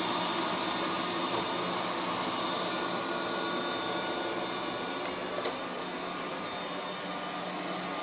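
Liectroux B6009 robot vacuum cleaner running on carpet: a steady motor hum and whine with a hiss of suction, slowly getting quieter as it drives away. A brief click about five seconds in.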